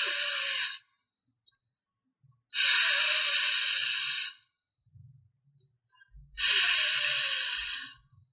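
A person holding a long voiceless "fff" sound, the English /f/ consonant made by blowing breath between the upper teeth and lower lip, three times with short pauses between.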